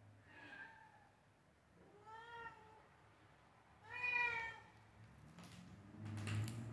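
Young domestic cat meowing three times, about two seconds apart. Each call rises and falls in pitch, and the third is the loudest. A few faint clicks follow near the end.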